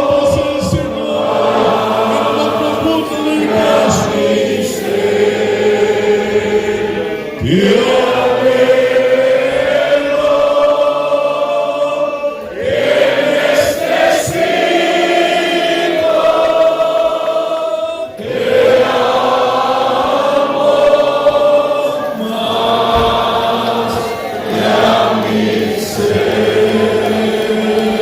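A congregation singing a slow Spanish worship song together, holding long notes in phrases of about five seconds with short breaks between them.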